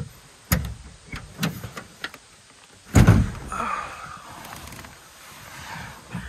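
A Toyota Tacoma's tailgate being opened from inside the camper shell: a few clicks and knocks of the latch and handle, then a heavy thud about three seconds in as the tailgate drops open, followed by softer rustling.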